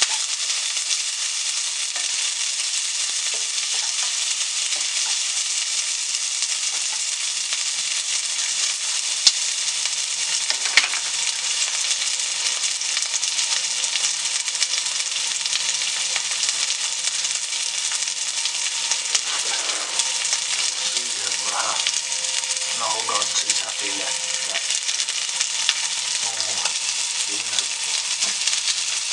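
Food frying in a pan on the stove: fat sizzling and crackling steadily, with a couple of sharp clicks partway through.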